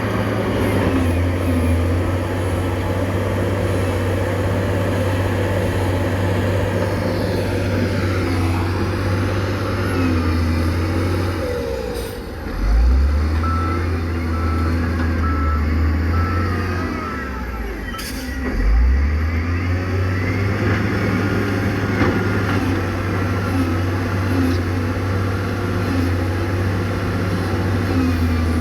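Heavy diesel construction machinery running steadily with a deep engine rumble. A reversing alarm beeps for a few seconds midway, and there are two sudden heavy knocks, about twelve and eighteen seconds in.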